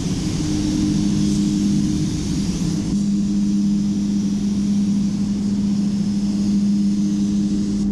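Compressed air hissing from a gravity-feed paint spray gun as it lays silver paint onto a body panel, over a steady low hum from the paint booth's ventilation fans.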